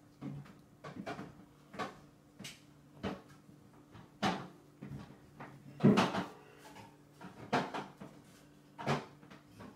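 Short, irregular knocks and clicks, one every half second to a second, the loudest about six seconds in, as a toddler's hands handle a stainless steel bowl on a high chair tray while she eats. A faint steady hum runs underneath.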